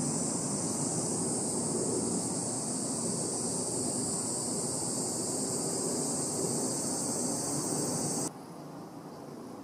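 Steady outdoor background noise: a low rumble under a strong, steady high-pitched hiss, with no train passing. It drops suddenly to a much quieter hiss about eight seconds in.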